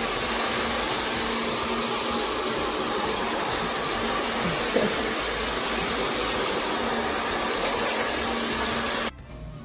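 Hand-held hair dryer blowing steadily while drying hair, an even rushing noise with a low hum underneath; it cuts off abruptly near the end.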